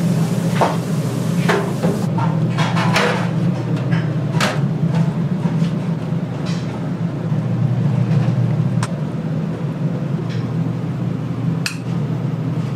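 Kitchen work noise: scattered knocks and clatters of utensils and containers, several close together about two to three seconds in, over a steady low machine hum.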